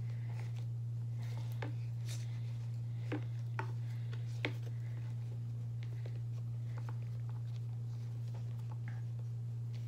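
A few light clicks and taps as a hand tool presses texture into a soft clay slab on a wooden board, the clearest in the first half, over a steady low hum.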